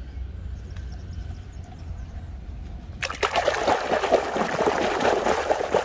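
Water splashing and trickling as a muddy toy truck is washed by hand in a basin of water, starting suddenly about halfway through.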